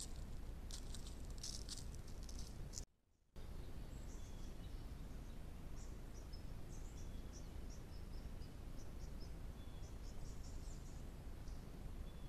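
Trail camera's ambient outdoor audio: a steady low hiss and rumble with scattered short high chirps of birds and insects. The sound drops out for about half a second just under three seconds in, where one camera clip ends and the next begins.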